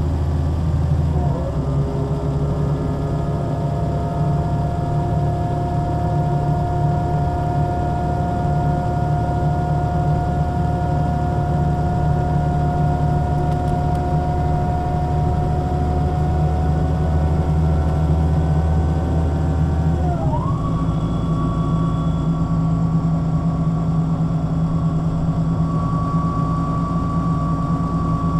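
MAN Lion's City NL 283 city bus under way, its straight-six diesel running steadily under a gearbox whine that creeps slowly up in pitch. About twenty seconds in, the whine jumps to a higher pitch and the engine note changes as the ZF automatic gearbox changes gear.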